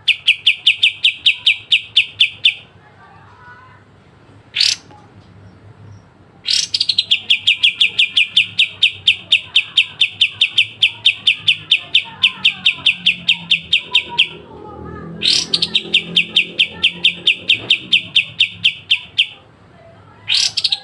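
Kapas tembak bulbul singing its sharp rapid trill: long runs of identical clipped notes, about eight a second, each run opening with a quick upward-sweeping note. Four runs, the longest about eight seconds, with a single rising note alone in the first pause.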